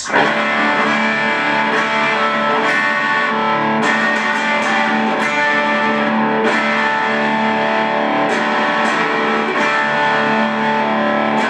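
Electric guitar played through a Boss Katana Mini amp on its crunch channel: distorted chords strummed and left ringing, starting abruptly and restruck every second or so.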